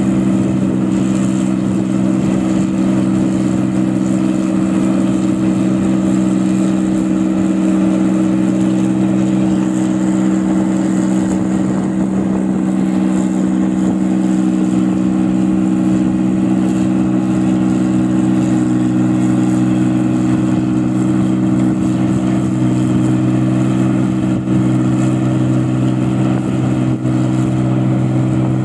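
New Holland 8060 combine harvester's diesel engine running loud and steady under load while harvesting rice, an even drone with a strong exhaust note that holds the same pitch throughout.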